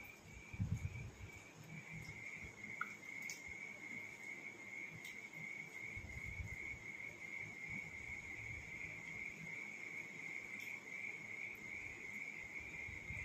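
A steady, high-pitched insect trill on one unbroken tone, over faint sounds of eating by hand: chewing, and rice being mixed on steel plates.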